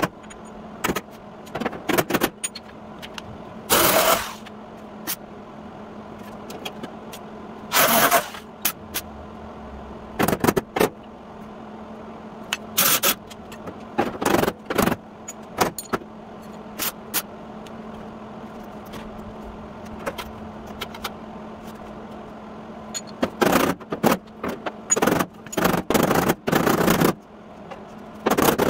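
Hammer blows on the sheet-steel rear fender of a 1953 Chevy truck as dents are roughed out: sharp metallic strikes at irregular intervals, singly and in quick bursts of several, over a steady low hum.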